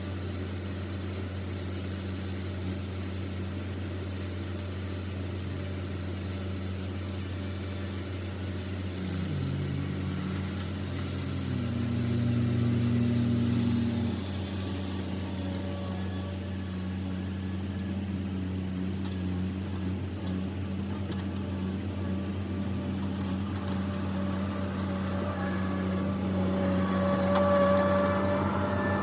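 Diesel engine running steadily, with a brief rise in its note about ten seconds in that drops back a few seconds later.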